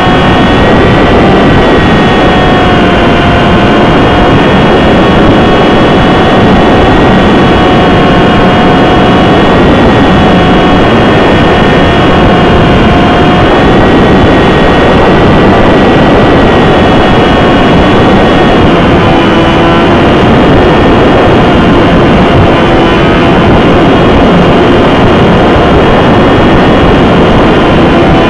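Champ RC plane's small electric motor and propeller whining steadily, heard from the onboard keychain camera, very loud and buried in rushing wind noise on the microphone. About two-thirds of the way through the whine shifts to a lower note.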